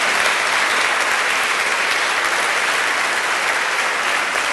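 An audience applauding steadily.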